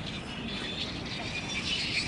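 Wind buffeting the microphone in a low, uneven rumble, with a faint high-pitched hiss that swells near the end.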